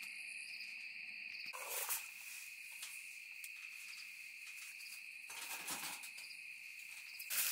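Crickets trilling steadily in the background, with two brief soft handling sounds, about two seconds in and again near six seconds, as a skillet is set onto a small wood stove.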